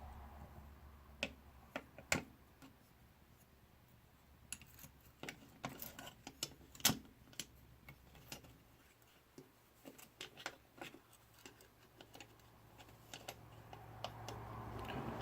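Faint, irregular small clicks and taps of the drone camera's small parts and cover being handled and pressed into place, with sharper clicks about two seconds in and again near seven seconds.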